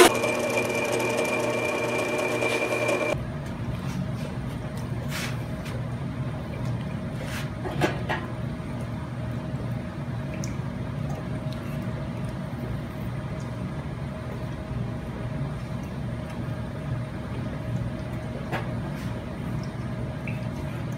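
Millrite mill's spindle running with a hole saw chucked over a sheet-steel part, a steady whine that stops abruptly about three seconds in. After that a steady low hum with a few faint clicks and taps, at a TIG welding setup.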